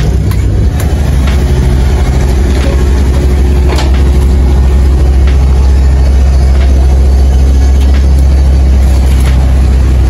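Concrete mixer truck's diesel engine running steadily with a deep, even rumble, with a few light knocks over it.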